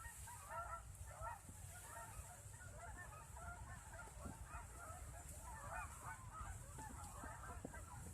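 Faint flock of geese honking: many overlapping calls that go on without a break.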